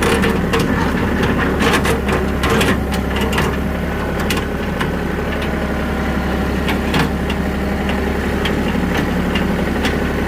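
Farm tractor engine running steadily in first gear at raised revs while it tows a skid steer on a chain, with scattered clanks and rattles throughout.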